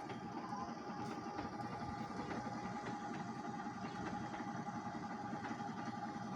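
Engine of a boom pump running steadily, a constant rumble with a steady whining tone over it.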